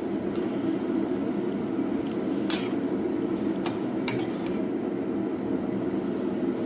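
A pot of chicken feet at a rolling boil on the stove makes a steady low bubbling noise. A few sharp metallic clinks of a utensil against the pot come in the middle.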